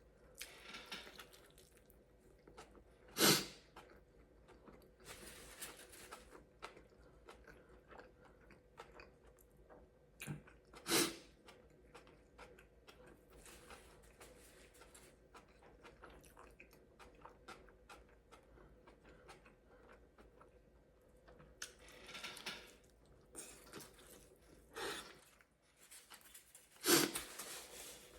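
Close-up chewing of a short rib burrito: soft, wet mouth sounds and small clicks, broken three times by a louder short breath.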